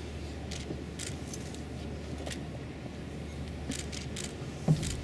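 Outdoor ambience of a large, hushed crowd: a steady low rumble with scattered faint clicks and rustles, and one short thump near the end.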